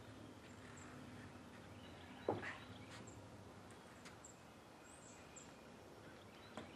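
Quiet outdoor background with a few short, high bird chirps scattered through it, and one sharp knock a little over two seconds in, with fainter clicks later.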